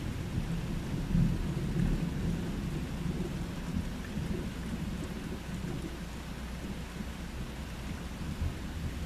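Low rolling thunder rumbling, loudest in the first couple of seconds and then slowly easing, over the steady hiss of rain falling.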